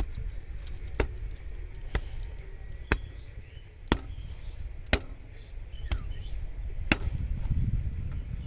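A sharp knock repeating steadily about once a second, over low wind rumble on the microphone, with faint high chirps.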